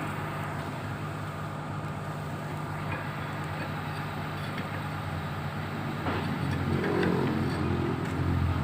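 Komatsu PC200-7 excavator's six-cylinder diesel engine running steadily, growing a little louder about six seconds in.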